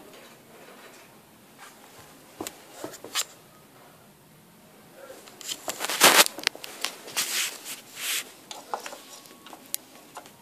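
Plastic LEGO bricks and toy machines being handled and moved: scattered clicks and knocks, with a denser run of scraping and rustling from about five to eight seconds in, loudest around six seconds.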